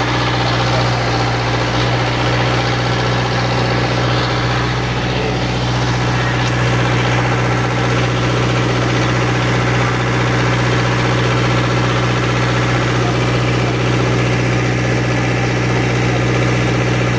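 An engine idling: a steady low hum at an even level, with no change in pitch.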